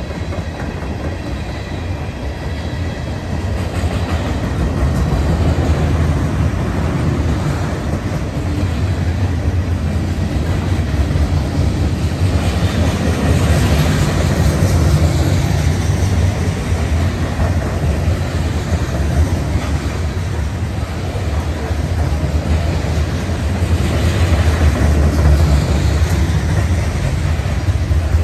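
Freight train of hopper and covered hopper cars rolling past close by: a steady, loud rumble of steel wheels on the rails that swells and eases a little.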